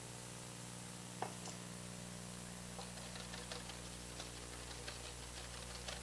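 Wire whisk ticking lightly against a stainless steel bowl as garlic aioli is whisked, a few quick clicks a second starting about three seconds in.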